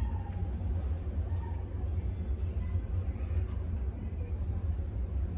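Steady low background rumble with no clear bird calls.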